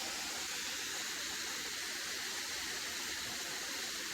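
Steady, even rushing of running water from the canyon creek, with no change throughout.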